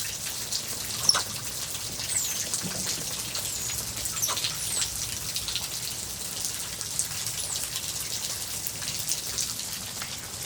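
Steady rain falling, with many individual drops striking close by and one sharper knock about a second in. A few short, high chirps come through the rain.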